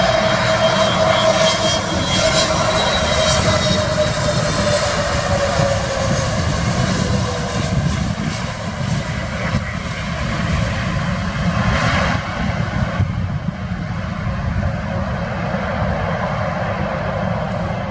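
Jet engines of a twin-engine Airbus A320 airliner coming in to land: a steady rumble and roar with a whine that slowly falls in pitch over the first several seconds. About thirteen seconds in the sound turns duller as the jet rolls along the runway.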